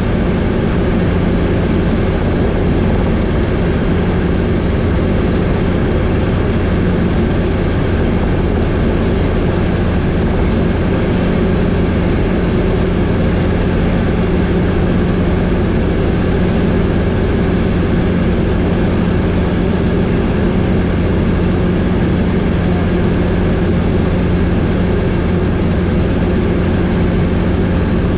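Helicopter in flight: the steady, unchanging drone of its engine and rotor.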